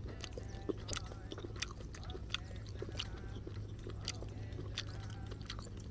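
A person chewing and biting fried pork intestine with pineapple, giving irregular sharp wet clicks of about one or two a second, over a steady low hum.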